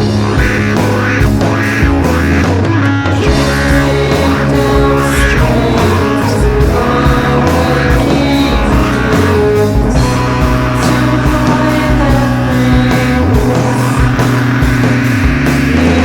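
Heavy psychedelic rock song: distorted electric guitars, bass and drums at a steady loud level.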